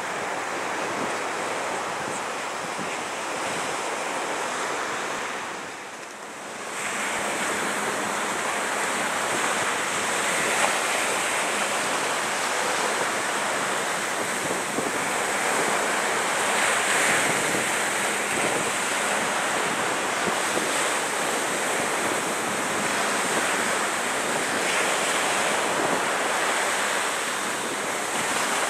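Wind buffeting the camera microphone over the steady wash of water on a shoreline, with a brief dip in the noise about six seconds in.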